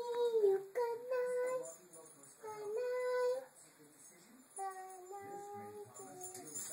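A small girl singing in a high voice: four short phrases of held, sliding notes with brief pauses between them.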